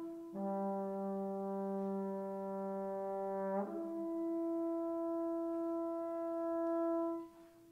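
Unaccompanied bass trombone playing: a brief note, then a long held note, then a higher long held note, each about three seconds, with a short pause near the end.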